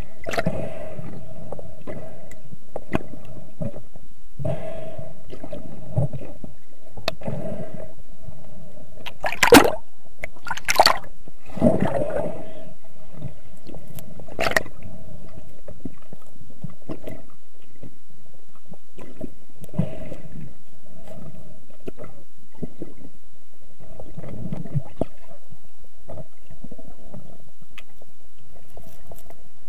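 Underwater sound heard through an action camera's waterproof housing: muffled water movement and gurgling that swells and fades every second or two, with a few sharp knocks about a third of the way in.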